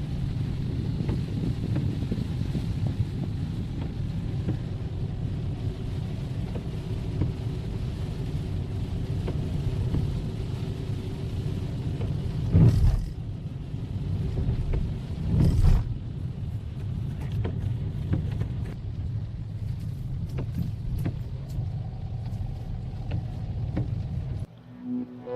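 Steady low vehicle rumble, with two loud knocks about halfway through and faint clicks later on. It cuts off abruptly shortly before the end.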